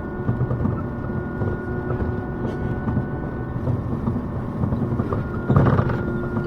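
City bus running, heard from inside the cabin: a steady rumble of drive and road noise with a faint steady whine, and a louder burst of noise near the end.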